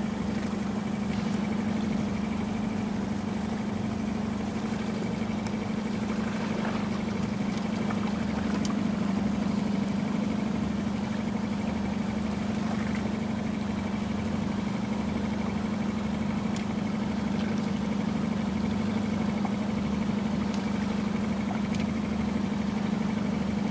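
A small fishing boat's outboard motor idling with a steady low hum.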